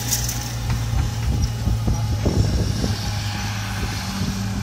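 Challenger MT765D tracked tractor's diesel engine running steadily as it pulls a seed drill past, a low even hum that eases slightly near the end as the tractor moves away.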